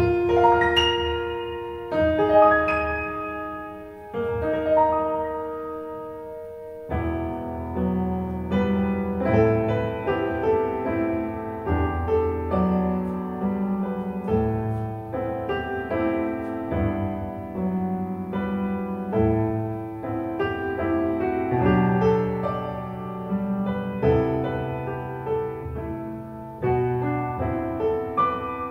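Piano music played back through Dali Menuet bookshelf speakers driven by a NAD 304 amplifier, picked up by a recorder in the room. A few slow held notes ring out and fade, then about seven seconds in the playing turns busier, with a moving bass line under chords.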